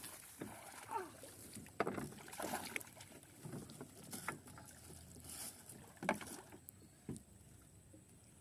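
Water splashing around a small boat on a river, with irregular paddle strokes and a few sharp knocks.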